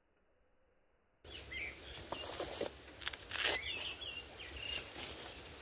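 Near silence for about the first second, then outdoor ambience with birds chirping: short hooked calls repeated every second or so. Under them runs a low steady rumble, and a couple of brief louder noises come about two and three and a half seconds in.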